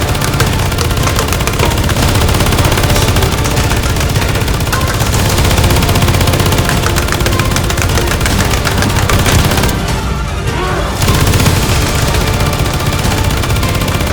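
Rapid, continuous gunfire-style blaster shots over loud action music. The high end briefly drops out for about a second near the end.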